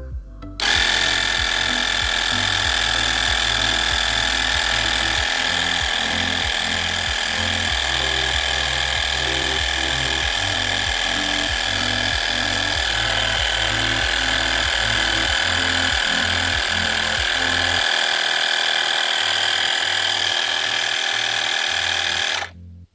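Homemade 12 V DC-motor electric air pump switched on about a second in, running with a steady high whine while it inflates a motorcycle tyre, then switched off suddenly near the end. The pitch shifts slightly about halfway through as the tyre pressure builds.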